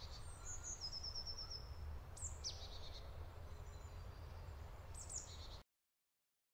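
Faint woodland ambience with small birds calling: a quick trill of high notes, then a few single high chirps. It cuts off abruptly near the end.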